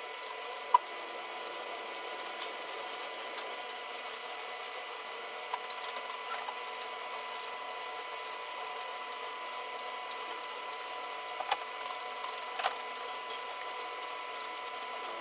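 Steady room hum with a faint high whine, broken by a sharp click under a second in and a few fainter clicks and taps later on.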